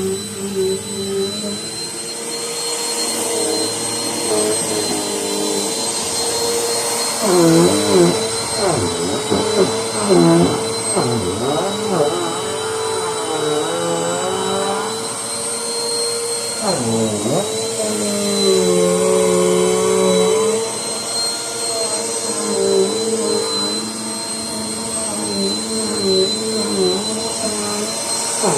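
Vacuum cleaner running with a steady high whine, its lower motor note sliding up and down in pitch from time to time as the load on it changes.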